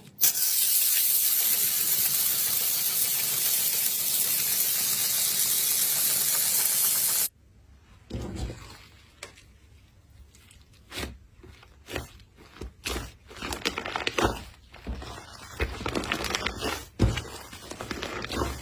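A steady loud hiss for about seven seconds that cuts off suddenly, then slime being handled: irregular crackles, clicks and squishy sounds as it is pressed and pulled.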